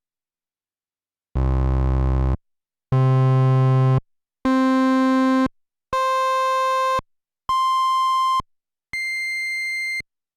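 Korg Monologue monophonic analog synthesizer sounding six separate held notes of about a second each, with short gaps between them. Each note is higher than the one before, from a deep, full bass tone up to a thin, high tone, and the last one is a little quieter.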